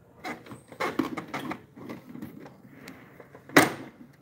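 Plastic clicks, rattles and knocks from hands handling parts inside an opened Epson L3251 printer, with one sharp knock near the end.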